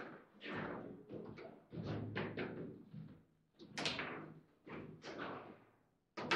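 Table football being played: a rapid, irregular string of hard knocks and thuds as the ball is struck by the rod figures and bounces off the table walls.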